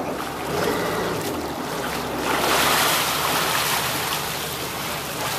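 Sea water splashing and churning around a fishing net full of small fish as it is hauled up alongside the boat, growing louder about two seconds in.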